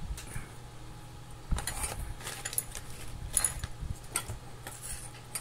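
Plastic cable ties being pulled tight around a fan motor's coil wiring: a handful of short rasps and clicks, spread across the last few seconds, over a low steady hum.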